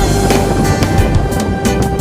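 Background music: held instrumental tones over a steady beat.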